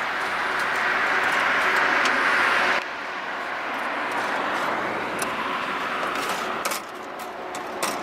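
Road traffic passing, a steady rush of tyres and engines that drops abruptly about three seconds in. Over it, a few light metallic clicks of gold bangles and coins being handled on a car's metal boot lid.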